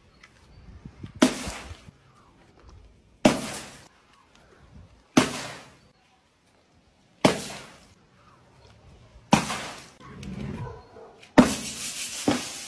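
A run of sharp smashing impacts, about one every two seconds, as objects burst on impact on a wooden board. Each hit trails off briefly with a crackling, shattering tail. The last and loudest is a plastic soda bottle bursting and spraying, with a second hit close behind it.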